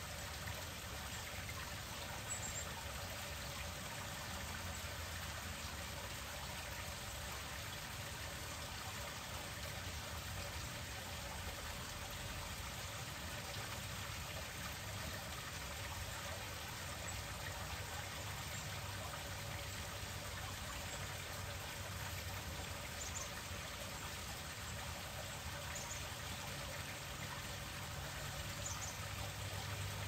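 Small garden rock waterfall splashing and trickling steadily over stones into a pond.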